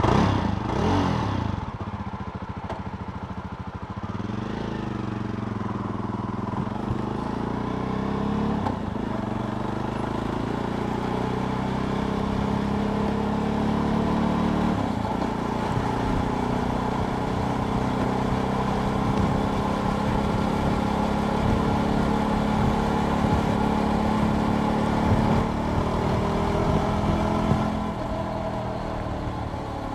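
Jawa Perak motorcycle's two-stroke twin engine under way. It revs up and drops back near the start, then runs steadily at speed, the pitch dipping and climbing again a few times.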